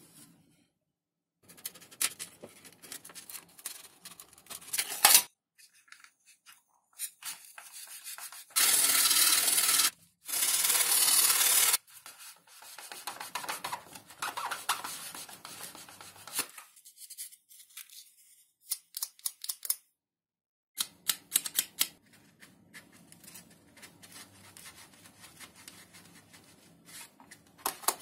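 Hand work on a foam and balsa model airplane: rubbing, scraping and light clicks in short, cut-together clips. About nine and eleven seconds in there are two loud, steady hisses, each about a second and a half long.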